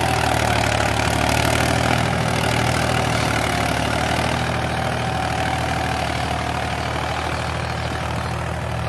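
Mahindra 265 XP Plus tractor's three-cylinder diesel engine running steadily under load while pulling a cultivator deep through the soil. Its revs hold, dropping only about 100 rpm. The sound fades slightly towards the end.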